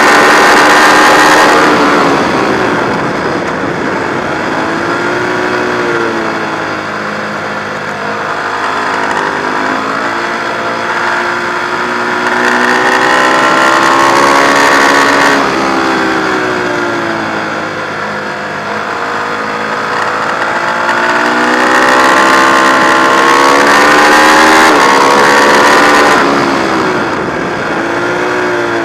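Ducati 1098's L-twin engine heard from on the bike at racing speed, revs rising and falling through the gears and corners. It runs hard at the start, eases off about two seconds in, pulls hard again from about twelve seconds, cuts back suddenly near fifteen seconds, climbs to full throttle again from about twenty seconds and drops off sharply near the end.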